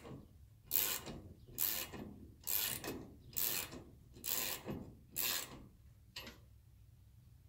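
Socket ratchet wrench tightening a bolt on a steel wall-mount bracket: about six rasping ratchet strokes, roughly one a second. The strokes stop a little over five seconds in, followed by one short click.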